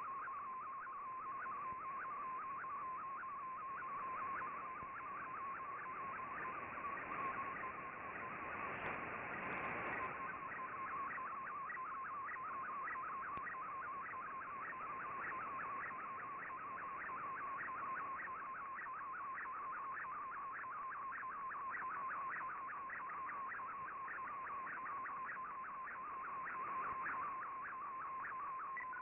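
Shortwave radio signal carrying a Fldigi MFSK picture transmission: a steady data tone around 1 kHz that blips up in pitch several times a second as each line of the image is sent, over a bed of shortwave hiss. A brief surge of static comes about nine seconds in.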